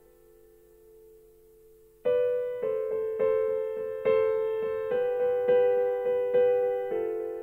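Solo keyboard music with a piano sound: a faint held chord, then from about two seconds in a slow string of chords struck roughly twice a second, each ringing out.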